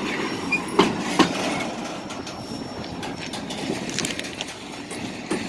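Freight train rolling away down the tracks, its wheels clicking over the rail joints, with a couple of sharp clacks about a second in, and the rumble fading as it recedes.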